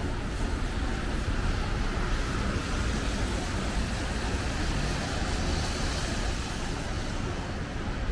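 Steady city street traffic noise: cars and other vehicles running past, an even hiss with a low rumble underneath.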